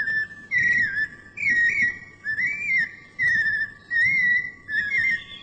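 Songbird singing a run of short, warbling whistled phrases, one after another about every half second to a second, wavering around the same pitch.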